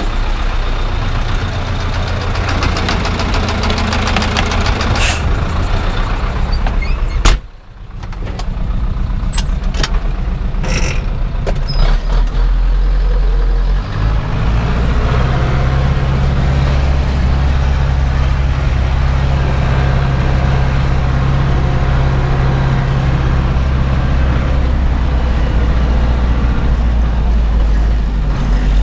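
Zetor 7011 tractor's four-cylinder diesel engine running steadily. About seven seconds in there is a sharp bang and the sound briefly drops out, then the engine runs on with a stronger, even note.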